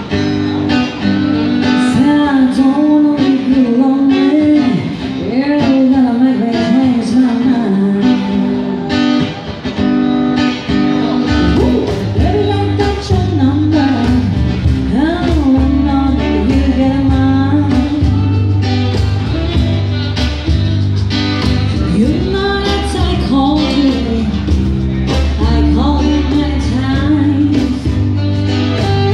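Small live band playing a song: vocals sung over acoustic guitar, cajon and electric bass. A strong low bass line comes in about eleven seconds in.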